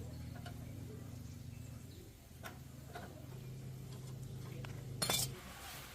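Light metallic clinks of small parts or tools, a few faint ones and a louder clatter about five seconds in, over a low steady hum that stops just after the clatter.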